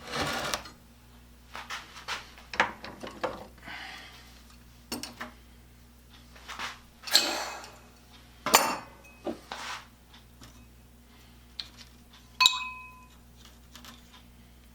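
Steel tools and small metal parts clinking and knocking as they are handled and set down, in irregular single strikes with some rustling between, and one clear ringing metal clink late on.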